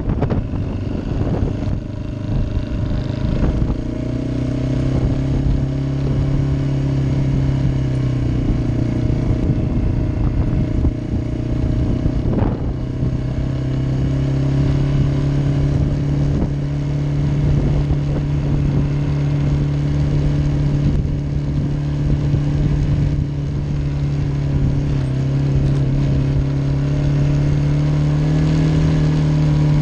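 ATV engine running steadily at low road speed, its pitch easing down and back up a little a few times with the throttle. A single sharp click is heard about halfway through.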